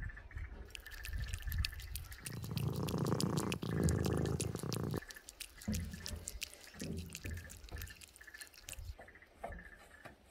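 A domestic cat eating wet food from a metal bowl: quick, wet chewing and licking clicks throughout, with a louder noisy stretch from about two to five seconds in.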